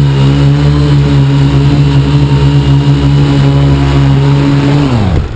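Quadcopter's electric motors and propellers, heard up close from the onboard camera, running with a loud steady hum. Near the end the pitch falls quickly and the sound drops away as the throttle is cut for landing.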